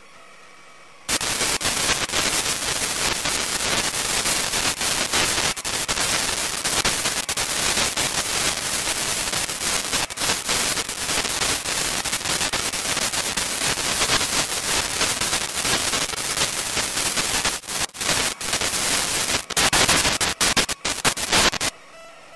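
Loud crackling static from electrical interference in the camera's audio. It starts abruptly about a second in over a faint hum, breaks up in several short gaps near the end, and cuts off suddenly, leaving the faint hum again.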